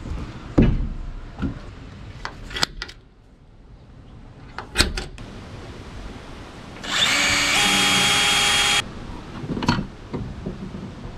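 Cordless drill (DeWalt) running for about two seconds, drilling into aluminum frame angle, starting about seven seconds in and then stopping. Before it come a few scattered knocks and clicks of handling.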